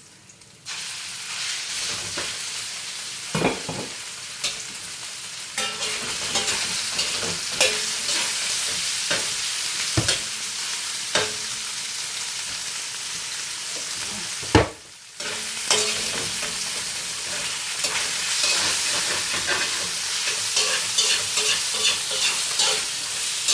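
Chicken breast pieces sizzling in hot oil and garlic in a wok, being stir-fried, with a few sharp knocks of the stirring utensil against the wok. The sizzle starts up loudly under a second in and runs on steadily, briefly dropping out about fifteen seconds in.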